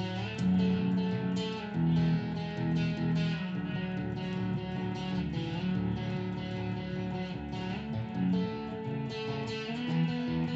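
Background music led by guitar, with held notes changing every second or so.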